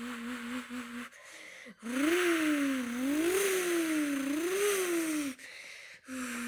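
A person imitating a Mazda 787B race car engine with his mouth. A steady, slightly wobbling buzzing hum stands for the idle. After a short pause about a second in, three rising-and-falling vocal revs follow, and the idle hum returns near the end.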